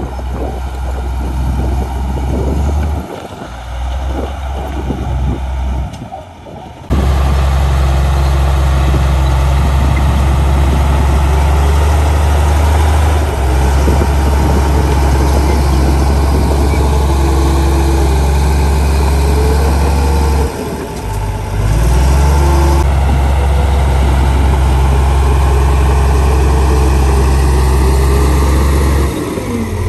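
Komatsu bulldozer's diesel engine working under load as the blade pushes soil, a steady low drone. It is softer and uneven at first, then loud and close from about seven seconds in, with brief dips in the engine note about two-thirds of the way through and near the end.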